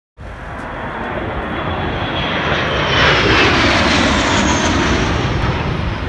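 Jet airliner flying low overhead, an Airbus A320-family twin turbofan. Its engine noise swells to its loudest about three seconds in, then eases slightly as it passes, with a faint falling whine.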